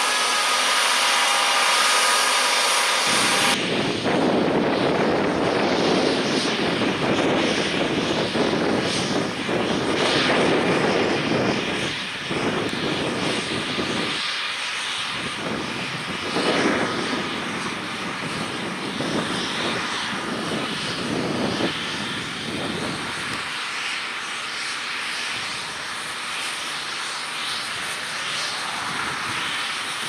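John Deere 6215R tractors working in the field. For about the first three seconds a tractor runs a power harrow drill, with a steady high whine over the engine. Then, after a cut, a tractor's six-cylinder diesel pulls a six-furrow reversible plough under load, a dense uneven engine drone with the rush of turning soil.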